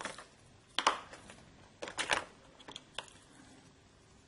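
A few light clicks and taps of small beading materials being handled on a work mat, spaced about a second apart.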